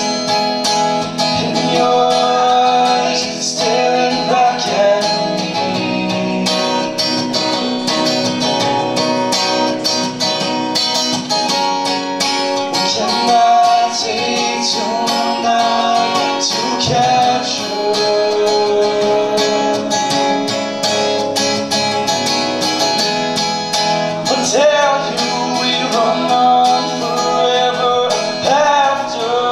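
Live music: an acoustic guitar playing an instrumental passage between the sung verses of a song.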